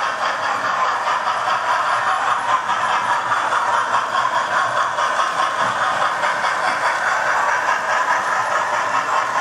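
Model trains running on a layout: a steady whir of small electric motors and wheels rolling on the track.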